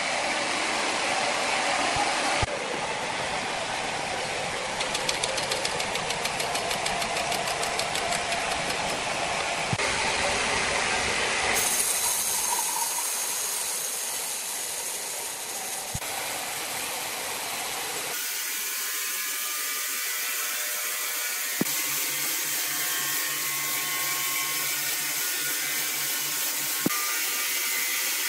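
Horizontal band sawmill running, its band blade sawing through a large log: a dense, steady mechanical noise whose character changes abruptly several times. In the last third it settles into a steadier machine hum with a couple of sharp clicks.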